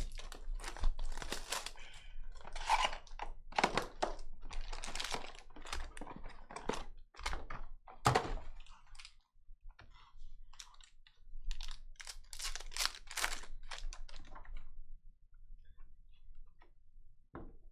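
Trading-card box and foil card packs being handled and torn open by hand: a busy run of crinkling, tearing and light taps on a table, which goes quieter near the end.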